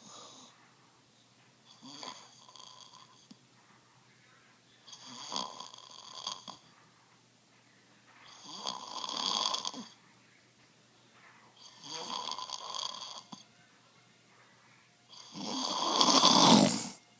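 Really bad snoring from a sleeping person: five long snores, each about a second and a half, coming roughly every three seconds with quiet breaths between. The last snore is the loudest.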